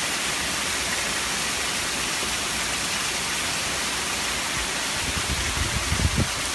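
Heavy thunderstorm rain pouring down in a steady, dense hiss. A low rumble comes in about five seconds in.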